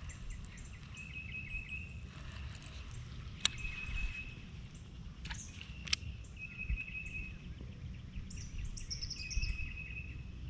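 Outdoor ambience: a short, high, even trill from a bird or insect repeats every two to three seconds over a low, steady rumble. There are a few sharp clicks in the middle and a burst of higher chirps near the end.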